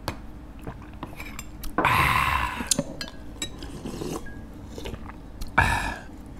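Metal spoons clinking against bowls, with two loud slurps of chicken soup broth from a spoon, one about two seconds in and one near the end.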